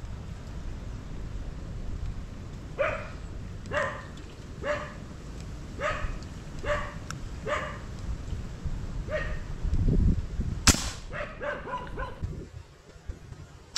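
A dog barking, single barks about a second apart, seven in all. About three seconds before the end comes one sharp crack, the shot of an Indo Tactical Predator PCP air rifle, followed by a few quicker barks.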